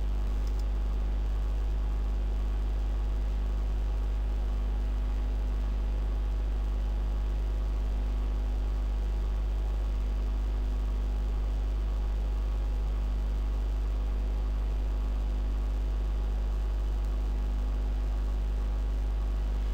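Steady low electrical hum with a faint hiss, unchanging throughout: the recording's background noise with no other event.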